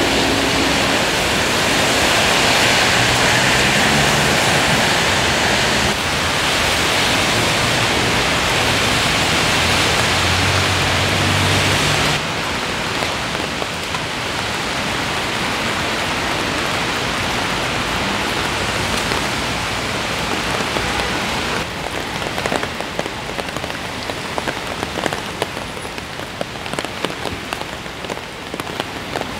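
Steady rain falling on wet city streets. In the first part, tyre hiss and a low engine hum from traffic lie under it. Partway through, the rain comes as a closer patter of separate drops.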